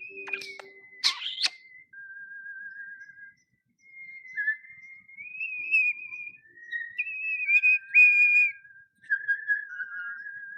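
Pet starling whistling a string of clear notes, each held about a second and stepping up and down in pitch like a tune, with short breaks between phrases.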